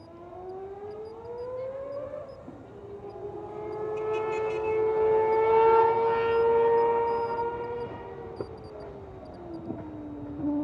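Mazda 787B's four-rotor rotary engine running under acceleration with a high, siren-like note. The pitch rises, drops at a gear change about two seconds in, then holds steady and gets louder as the car comes closer. Near the end the pitch and level fall away.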